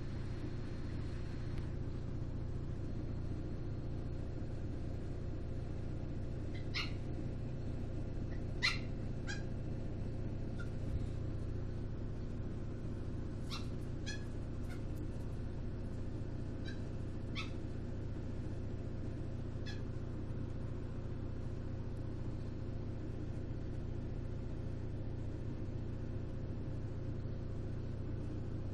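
Samsung WD136 front-load washer-dryer running through its first cycle with a steady low hum. Between about seven and twenty seconds in, a handful of short, sharp sounds stand out above it.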